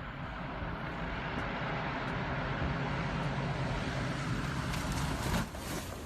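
Steady roar of a cargo plane's engine as it comes in for an emergency landing, with wind noise on the microphone; the sound dips briefly near the end.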